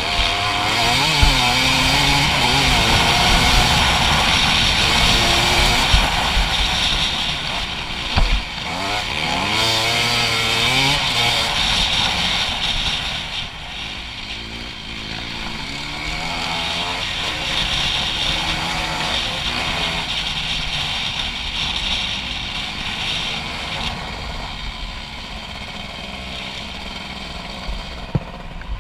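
Dirt bike engine accelerating hard, its pitch rising and dropping back several times in the first half, then running quieter and steadier in the second half.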